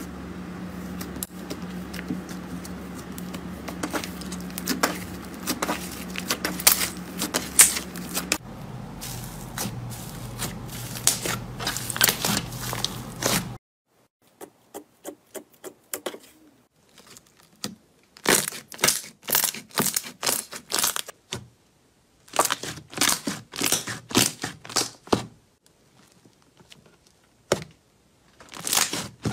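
Slime being squeezed, pressed and poked by fingers, making dense crackling and clicking squishes. For the first half these run over a steady low hum. After that come pauses and short bursts of quick sticky clicks.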